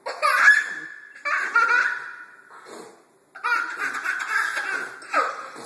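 Young children laughing in high-pitched bursts, three main fits of laughter that each trail off, the last one longer.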